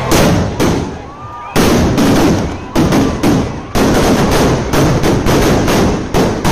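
Firecrackers bursting on the ground in a rapid, irregular series of loud bangs. Two bangs open it; from about a second and a half in they come two or three a second.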